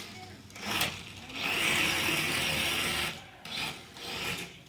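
Small electric motor and gears of a 1:32-scale remote-control buggy driven in short bursts of throttle, with a rasping whir. The longest burst lasts about a second and a half in the middle.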